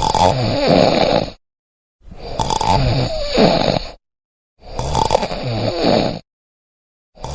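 Loud snoring: long snores coming about once every two and a half seconds, each lasting a second and a half to two seconds, with dead silence between them; a fourth snore starts near the end.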